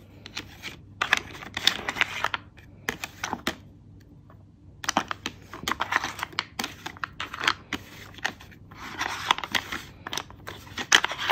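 Hard pieces of a pet puzzle feeder clicking and scraping as a hand slides its cups and turns its centre disc, in three clusters of rapid clacks.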